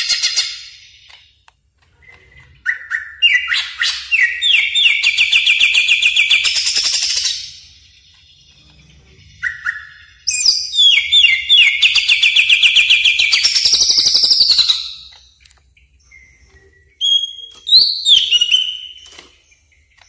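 Cucak ijo (greater green leafbird) singing: three loud phrases of rapid trilled whistles. The first two are long and climb in pitch toward their end; the last is short.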